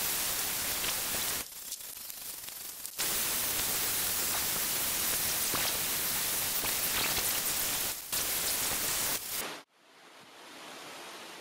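Bosch angle grinder running a felt polishing disc with rubbing compound against an aluminium engine head cover, buffing it toward a mirror finish. It is heard as a dense, steady hiss that jumps in level a couple of times and cuts off abruptly about nine and a half seconds in, leaving a fainter steady hiss.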